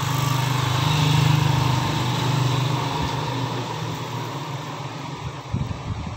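A small engine running, swelling to its loudest about a second in and then fading away. A few short low thumps come near the end.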